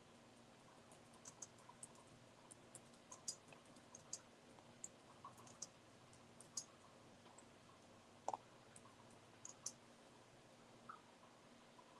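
Faint, irregular clicking of keys and a mouse as a post is typed up, a few clicks a second at most, with one slightly louder click about eight seconds in, over quiet room tone.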